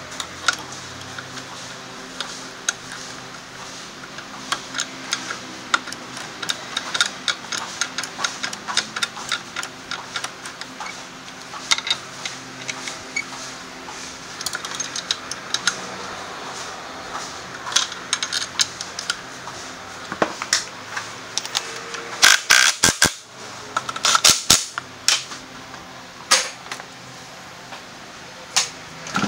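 Hand ratchet wrench clicking in irregular runs as bolts are worked, with a cluster of sharper, louder clicks about three quarters of the way through.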